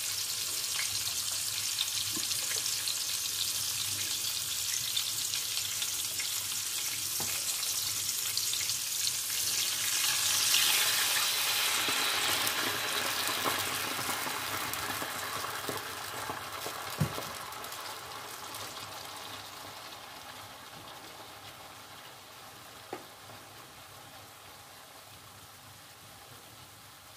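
Rolled meat roast sizzling in hot oil and butter in a pot; about ten seconds in, a glass of white wine goes into the hot pan and the sizzle swells into a loud hiss, then slowly dies down as the wine simmers off. A few light clicks near the middle.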